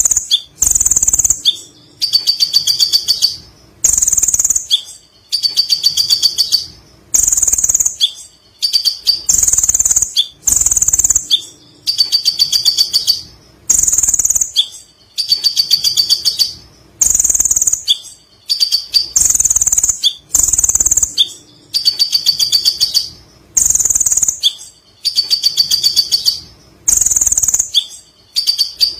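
Kolibri ninja sunbird singing its long, rapid chattering song (ngekek): high-pitched bouts made of fast ticking notes, repeating about every second and a half.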